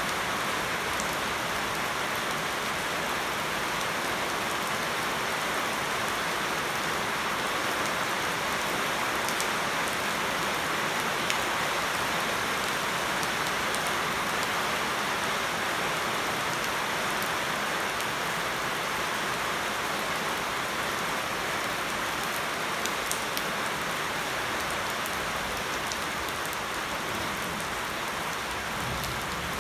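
Steady rain falling onto standing water on paving and onto leafy shrubs: an even hiss with scattered drop ticks.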